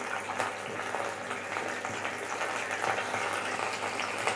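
Panch phoron seeds and a dried red chilli sizzling in hot oil in a kadai, with a steady crackle of many small pops: the tempering (phoron) being fried.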